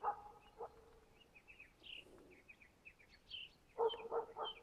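A young moose-hunting dog bay-barking at a moose it is holding at bay, heard from some distance: two barks at the start, then a quick run of about five barks near the end. Small birds chirp in between.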